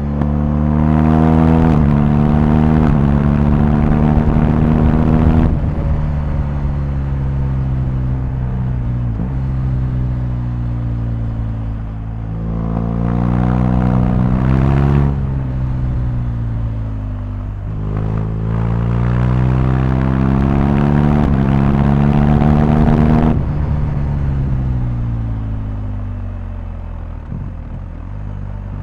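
BMW R1250GS boxer-twin engine under way, rising in pitch under throttle several times, each climb ending in a sudden drop about five, fifteen and twenty-three seconds in. Near the end the engine winds down steadily to a lower, even note as the bike slows.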